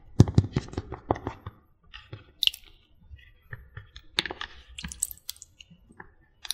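Close-up ASMR trigger sounds: a quick run of sharp clicks and crackles for the first second and a half, then scattered clicks and taps.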